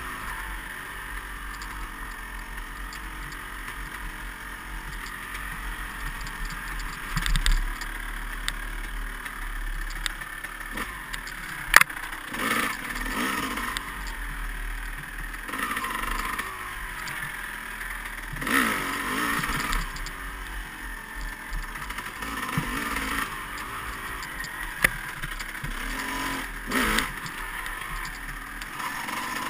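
Dirt bike engine revving up and falling back in repeated bursts under riding load, over a steady rush of wind on the bike-mounted microphone, with a few sharp knocks.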